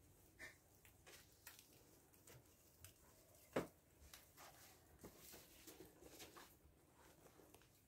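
Near silence with faint scattered squishes and clicks of a soapy sponge being wiped over a car's door, window and side mirror, and one short, louder knock about three and a half seconds in.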